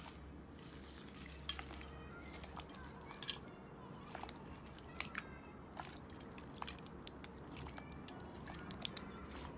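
Slime being handled, giving irregular sharp clicks and small pops over a low steady hum, a few of them louder.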